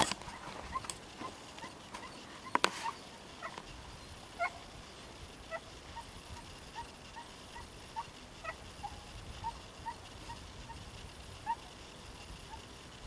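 A string of short, high squeaky animal calls, about one or two a second, with a single sharp click about two and a half seconds in.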